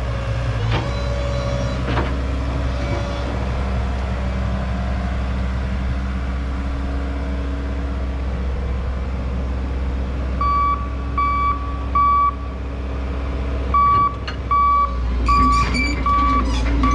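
Heavy equipment engine running steadily, its reversing alarm beeping evenly about every 0.7 seconds from about ten seconds in, three beeps, a short pause, then more. A few sharp knocks come through over the engine.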